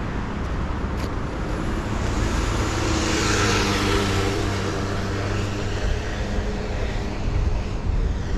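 A car driving past on the road, its engine and tyre noise swelling about three seconds in and then fading.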